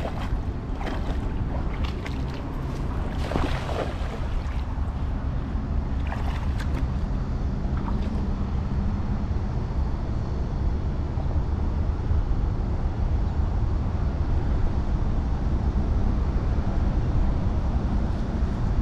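Wind buffeting the microphone as a steady low rumble, over lapping shallow river water. There are a few short splashes in the first eight seconds.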